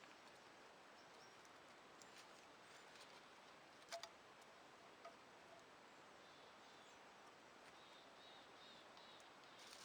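Near silence: faint forest ambience with a few soft clicks, and faint high chirps in the second half.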